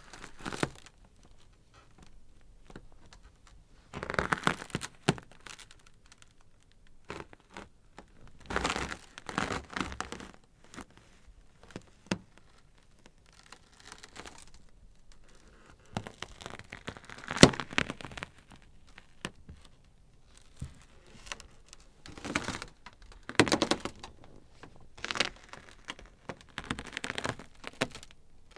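Ice crackling and cracking in irregular clusters of sharp snaps every few seconds, with quieter gaps between; the loudest single crack comes a little past the middle.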